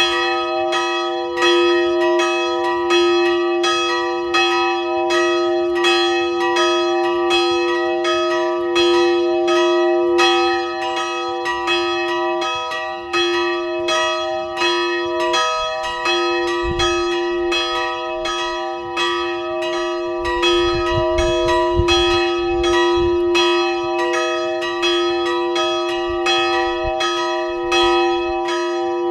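Two swinging church bells ringing together in full peal: the 132 kg Szent Imre bell (note D-sharp, cast by László Szlezák in 1927) and the 35 kg small bell (note B, cast in 1957). Their strokes overlap continuously over a steady hum of ringing tones, heard from directly beneath them in the belfry.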